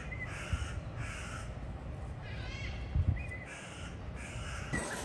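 A crow cawing: harsh calls in quick runs of about three, with a rasping call about halfway through.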